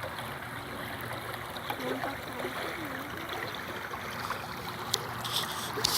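Steady rush of flowing water, with faint voices in the background from about two seconds in.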